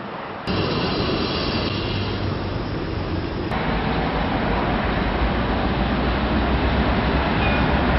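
Street traffic noise: a steady rumble of engines and passing vehicles in a city square. The sound jumps abruptly louder about half a second in and changes again about three and a half seconds in.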